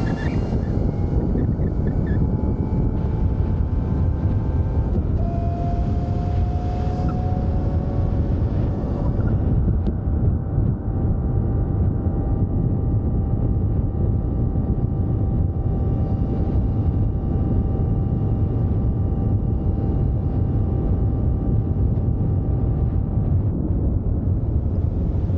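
Wind rushing over the microphone on a moving electric motorcycle, with the thin, steady whine of the Velimotor VGX6's electric drive motor at road speed. The whine steps up in pitch about five seconds in and fades out near the end.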